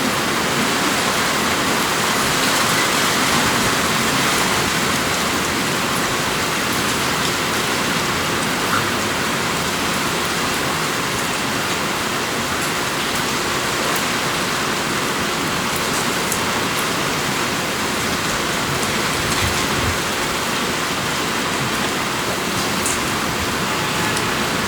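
Steady rain: an even, dense hiss of falling rain with scattered faint drop ticks.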